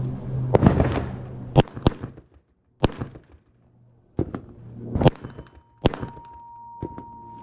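A string of about eight gunshots fired at an uneven pace, some in quick pairs, in a timed drill on steel targets. After the later shots a steady ringing tone hangs on.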